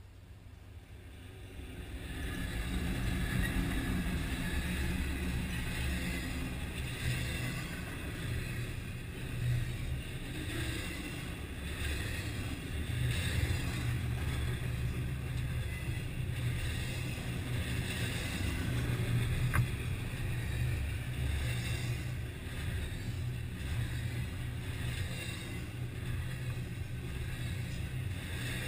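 Double-stack intermodal container train passing close by: a steady rumble of steel wheels rolling on the rails, building up over the first few seconds as the train arrives and then holding.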